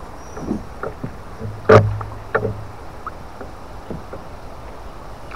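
Water splashing and sloshing at the side of a small boat as a pike is held in the water and released by hand. A few short splashes, with one sharp, louder splash or knock a little under two seconds in.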